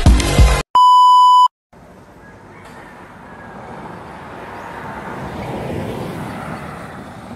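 Electronic dance music cuts off, followed by a loud, steady electronic beep lasting under a second. After a moment of silence, outdoor road noise rises and fades as a vehicle goes by.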